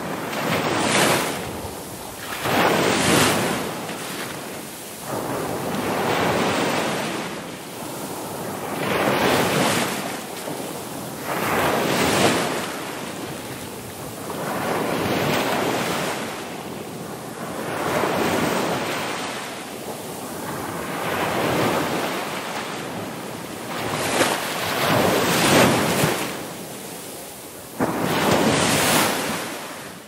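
Ocean surf: waves breaking and washing in, rising and falling in loudness every two to three seconds.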